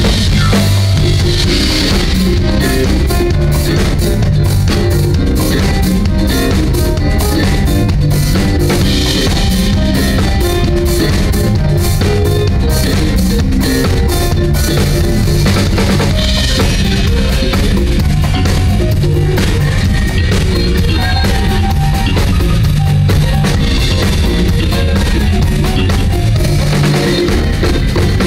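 Live band playing loud and steady, led by a drum kit with busy snare, rimshot and bass-drum hits over bass guitar and conga drums.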